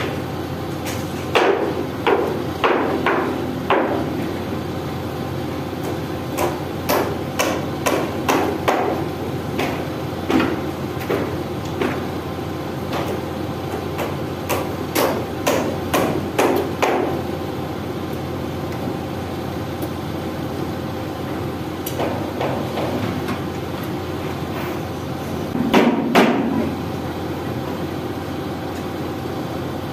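Hammer striking steel on the bucket linkage pins of a Hitachi EX200 excavator during a bucket change, in bursts of ringing blows about two a second with pauses between. The excavator's diesel engine runs steadily underneath.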